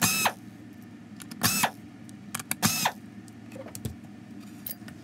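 Cordless drill-driver with a Torx T15 bit whirring in three short bursts about a second and a quarter apart as it backs out screws from a plastic vacuum cyclone housing, with light clicks of screws and plastic being handled between the bursts.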